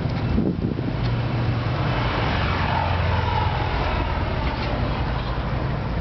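Traffic noise: a motor vehicle's engine running with a steady low hum, and a faint tone that rises and falls around the middle as it goes by.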